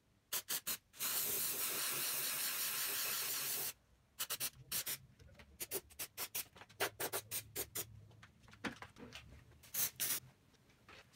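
Aerosol can of paint remover spraying onto a metal panel: three short spurts, then a steady hiss for nearly three seconds. Irregular crackling clicks follow for several seconds after the spray stops.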